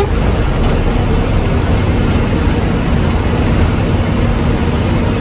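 Haryana Roadways bus under way: steady engine drone and road noise, as heard from inside the bus.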